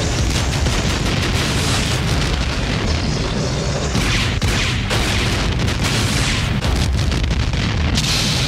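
Film sound effects of a massive explosion: a loud, continuous low rumble with many sharp cracks and blasts running through it.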